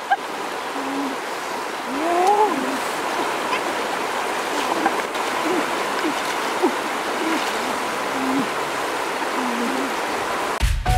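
Shallow stream running steadily over stones, with a few short voice sounds from a woman and a small child.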